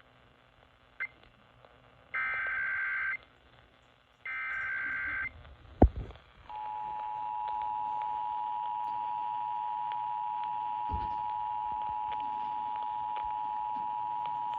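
Emergency Alert System test over AM radio. Two roughly one-second bursts of data tones (the SAME digital header) are followed by a sharp click, then the EAS two-tone attention signal, a steady chord of two close tones held for about eight seconds that cuts off sharply.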